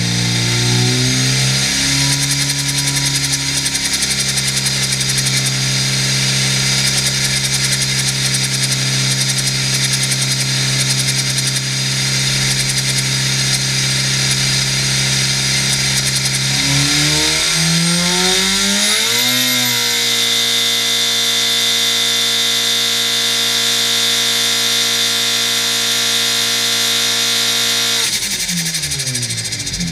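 Rotrex-supercharged 999cc five-port A-series four-cylinder engine running on a dyno. It is held at a steady speed, revs up about two-thirds of the way through to a higher steady speed, and drops back near the end. A high supercharger whine rises with the revs.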